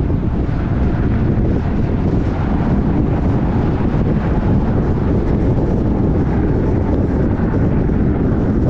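Steady low rumble of tyre and wind noise from a car cruising at highway speed.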